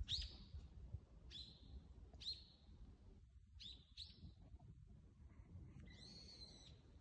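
Faint bird calls: short, high chirps that drop in pitch, about one a second, then a longer, buzzier call with several pitches near the end.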